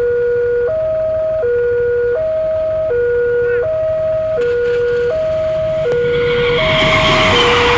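Railway level-crossing warning alarm sounding a two-tone electronic signal that alternates high and low, each tone lasting about two-thirds of a second. From about six seconds in, a loud rushing noise builds up over it as a train comes through the crossing.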